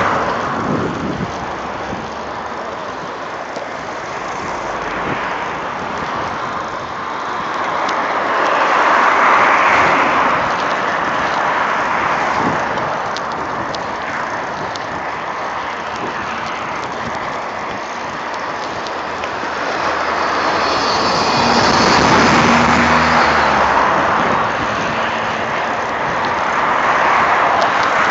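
Cars driving past on the road alongside, the traffic noise swelling and fading as each passes, three times in all. The loudest pass, about 22 seconds in, carries a steady engine hum and a higher whine.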